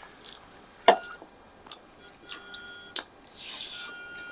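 Eating sounds at a meal: wet mouth clicks and smacks while chewing spicy food, with a sharp click about a second in and a short hissy breath or slurp near the end.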